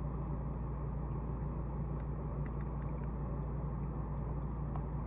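Steady low mechanical hum with a few faint, scattered clicks.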